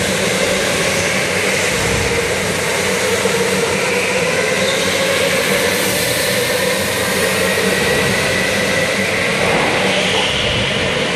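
Electric go-karts running at speed: a steady motor whine over a constant rush of noise, the whine drifting slowly up and down in pitch.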